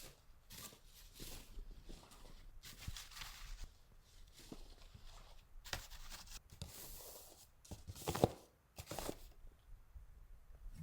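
Footsteps crunching and swishing through snow, faint and irregular.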